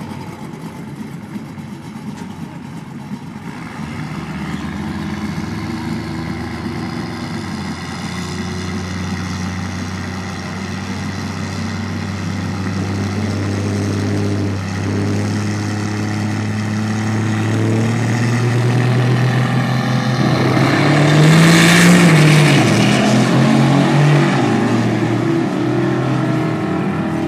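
Diesel pickup truck's engine held at raised revs on the drag strip's starting line, slowly building and growing louder, then launching hard down the quarter-mile: the loudest moment comes about three-quarters of the way through, with the pitch rising and falling, before it fades down the track.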